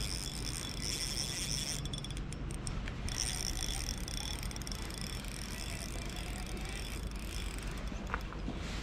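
Spinning reel being cranked: a steady mechanical whirr of its gears as a lure is retrieved, with high-pitched insect chirping behind it.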